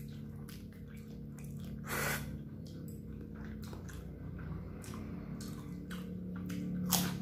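Close mouth sounds of a person eating fried noodles: chewing and slurping with many small wet clicks, a short loud rush of noise about two seconds in and a sharper one near the end.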